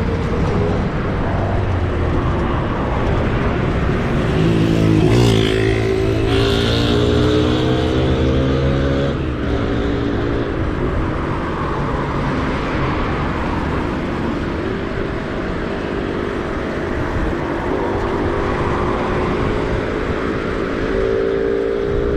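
Motor vehicle engine running close by, its pitch rising twice as it speeds up, over steady wind and road noise.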